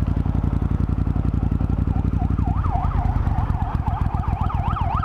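An emergency vehicle's siren starts about two seconds in, a fast rising-and-falling wail of two or three sweeps a second that grows clearer. Under it runs the steady hum of the Triumph Thunderbird Storm's parallel-twin engine, ridden at speed.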